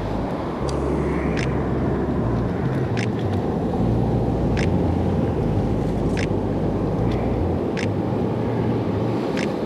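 Steady rush of surf and wind rumbling on the microphone, with a short sharp tick recurring about every one and a half seconds.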